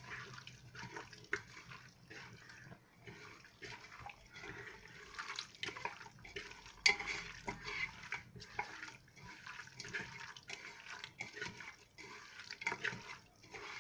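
A hand mixing raw beef pieces with spice masala in a metal pressure cooker pot: irregular wet squelches and small clicks and knocks against the pot.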